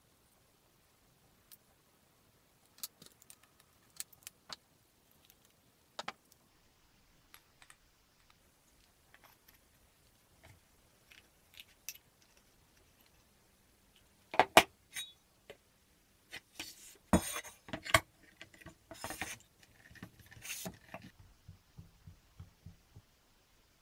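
Scattered clicks and clinks of small metal parts being handled and fitted: a steel pin and flange bearing on a wooden plate, then a keyed drill chuck on a drill-press stand. Past the middle comes a denser, louder run of knocks and rattles.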